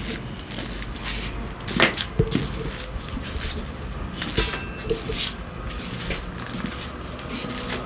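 Sharp clicks and knocks during a chiropractic spinal adjustment, scattered through, with the two loudest about two seconds in, close together.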